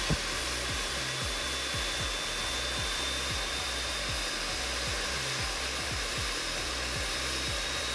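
Steady whooshing hiss of air-moving machinery with a faint high-pitched whine in it.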